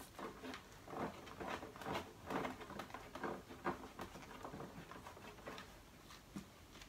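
Faint, irregular light clicks and rustles of hands handling a rebreather's hoses and fittings.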